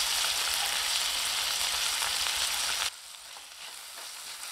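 Onions and tomato sizzling in hot oil in a stainless steel kadai, at the tomato-sautéing stage of an egg curry base. The sizzle is a steady hiss that drops suddenly to a much quieter level about three seconds in. After the drop, a spatula stirs the pan with a few light scrapes.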